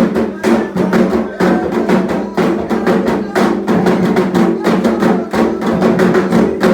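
Candomblé ritual drumming: atabaque hand drums played in a fast, steady, unbroken rhythm with sharp strikes several times a second, the rum rhythm for the orixá Oxumarê.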